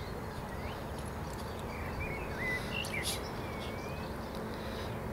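Outdoor ambience over a steady low background noise, with small birds giving short chirps scattered through, and a couple of faint clicks in the middle.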